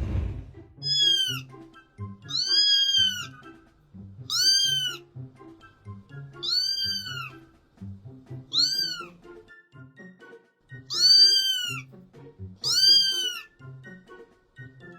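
A kitten meowing seven times, each a short high call that rises and falls in pitch, spaced about every two seconds. Quiet background music plays underneath.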